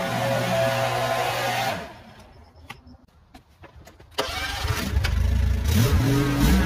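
A steady engine hum fades out about two seconds in, leaving near quiet with a few sharp clicks and taps. Halfway through an engine cuts back in loud, its pitch rising and falling as it revs.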